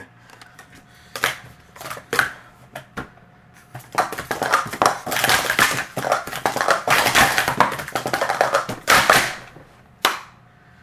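Plastic sport-stacking cups clattering on a mat in a rapid timed stack lasting about five and a half seconds, after a few separate clicks. The run ends with one sharp slap, the hands coming down on the timer pads to stop the timer.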